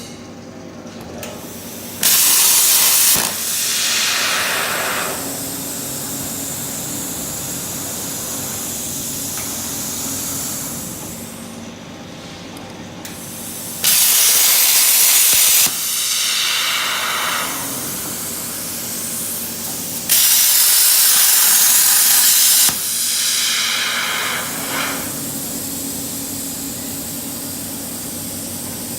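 CNC plasma cutter torch firing three times, each a loud hissing burst of one to two and a half seconds that trails off into a fading hiss, over a steady machine hum.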